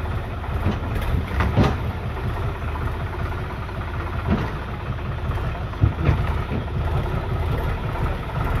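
Tractor diesel engine running steadily as it tows a trailer through floodwater, with water churning around the wheels. A few short knocks come through, one about a second and a half in and others around four and six seconds.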